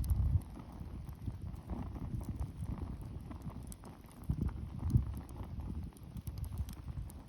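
Wood bonfire crackling: scattered sharp pops and snaps over a low rumble of burning, with a louder low thump about five seconds in.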